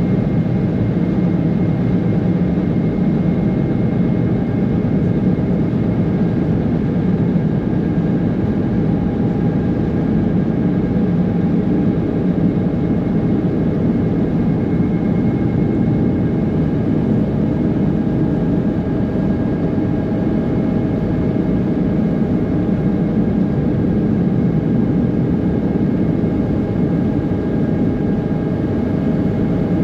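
Passenger ferry under way: the engines make a steady, even drone with a few faint held whining tones, over the rush of water along the hull.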